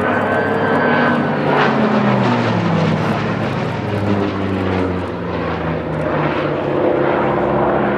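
Hawker Sea Fury's big radial piston engine and propeller flying past overhead, its note falling in pitch as it passes, from about two to six seconds in.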